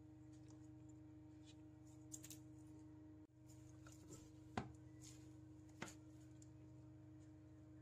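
Near silence: steady low room hum, broken by two short, sharp clicks about a second and a half apart in the second half.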